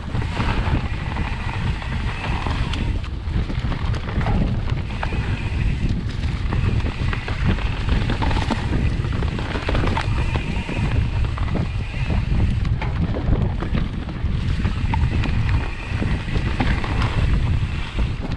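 A mountain bike riding over a dirt singletrack, with constant wind buffeting the microphone. Tyres run over dirt and dry leaves, and the bike rattles with short knocks over bumps.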